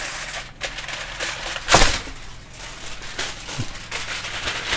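Plastic packaging crinkling and rustling with small kitchen clatters as food items are handled, and one louder knock about two seconds in.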